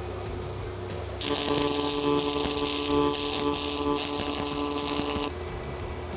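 MIG welder arc sizzling and crackling as a bead is laid on the steel bender plate, starting suddenly about a second in, running for about four seconds and cutting off abruptly, with a steady hum beneath it.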